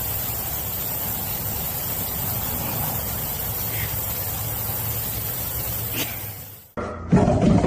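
Steady, even hissing noise that stops abruptly near the end. It gives way to a different sound with several sharp knocks.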